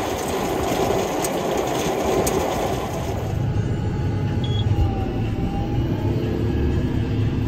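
Orenge compost spreader running, its vertical rear beaters spinning and flinging compost with a dense mechanical noise. About three seconds in this gives way to the steady low hum of a tractor engine heard from inside the cab.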